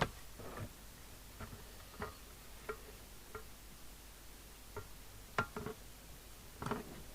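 Irregular light clicks and small knocks from handling the CB radio set and its metal case parts, with a sharper click right at the start and another about five and a half seconds in.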